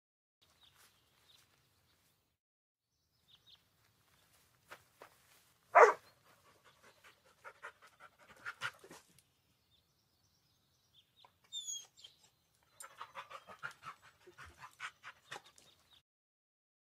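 Recorded dog sounds played by Google Search's 3D AR dog model: one loud, sharp bark about six seconds in, then two bouts of quick panting.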